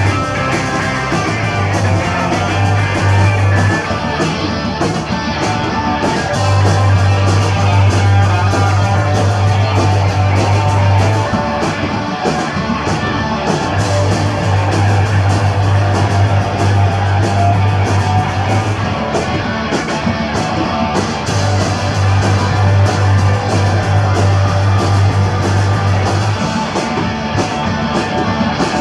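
Live punk rock band playing at full volume: distorted electric guitars, bass and drums, with a held low bass note that drops in and out. The music stops abruptly at the end.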